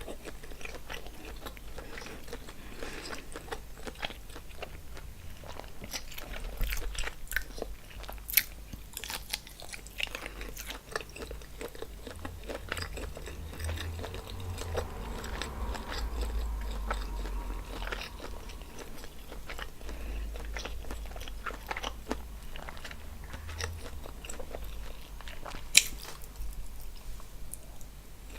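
Close-miked eating: chewing and biting through seafood boil, with many small wet mouth clicks. A sharper click comes about eight seconds in, and a louder one near the end.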